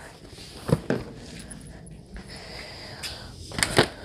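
Cardboard toy box being opened and handled: two sharp knocks about a second in and two more near the end, with rustling packaging between.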